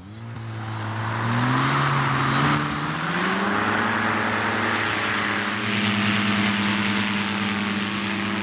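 Powered hang glider's engine and propeller revving up, its pitch climbing over the first three seconds or so, then running steady at high power.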